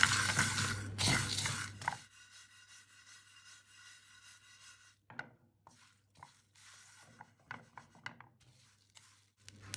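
Wooden spatula stirring whole spices dry-roasting in a pan: coriander and cumin seeds, mustard seeds, dried red chillies and bay leaves scraping and rattling against the pan. It stops about two seconds in, leaving near silence with a few faint ticks.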